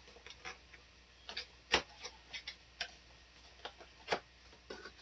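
Scattered plastic clicks and taps from an action figure and its accessories being handled, irregular, with two louder knocks about two and four seconds in.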